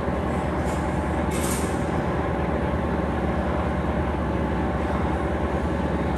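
Blanchard No. 20 vertical rotary surface grinder running under power: a steady mechanical drone with a constant low hum.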